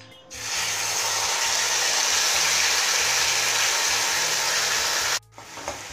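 Wet onion, garlic, ginger and green chilli paste sizzling loudly as it hits hot mustard oil in a kadhai, a steady hiss that cuts off suddenly near the end.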